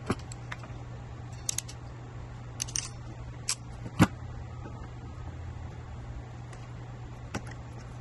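Hand tools and small connector parts being picked up and set down on a tabletop: scattered clicks and clacks, the loudest a single knock about four seconds in. A steady low hum runs underneath.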